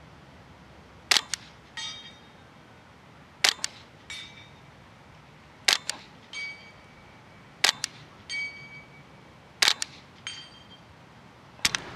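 Suppressed rifle firing six shots about two seconds apart, each a sharp crack. Each of the first five is followed well under a second later by the ring of a steel target being hit downrange.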